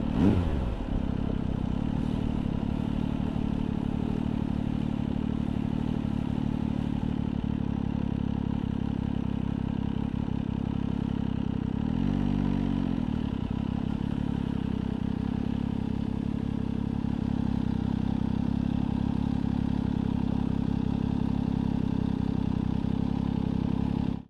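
MV Agusta Brutale 800 RR's three-cylinder engine through its aftermarket FF by Fresco exhaust, revs falling in the first second and then idling steadily. About halfway through the revs rise and fall once, briefly.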